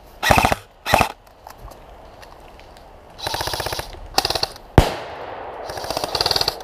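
Airsoft rifles firing short bursts of automatic fire, about five bursts, some close and loud, others softer and further off, with one sharp single crack just before five seconds in.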